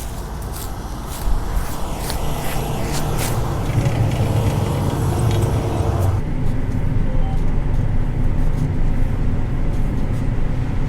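Combine harvester running with a steady low engine drone. For about the first six seconds sharp clicks and rattles sound over it, then the sound changes abruptly to a duller, steadier hum.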